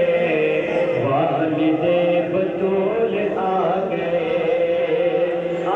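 Male voice chanting a devotional recitation in long, held notes that bend slowly in pitch.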